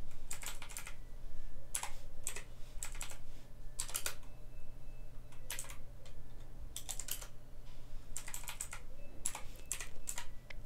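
Computer keyboard typing, keystrokes clicking in short quick runs with pauses between, over a steady low hum.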